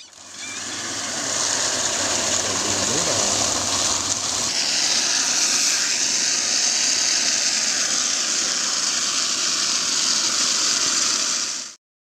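Water jetting under pressure from a well's discharge pipe: a steady, loud hiss that builds up over the first second or so and stops abruptly near the end. A low rumble runs underneath for the first few seconds.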